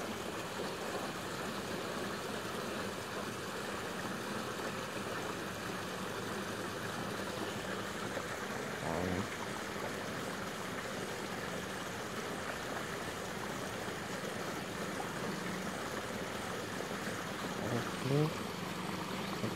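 Steady rushing outdoor background noise with a faint low hum under it. A brief voice sound comes about nine seconds in, and another near the end.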